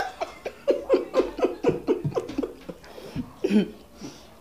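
A woman laughing in a quick run of short 'ha' notes, about five a second, each dropping in pitch, with a louder laugh about three and a half seconds in.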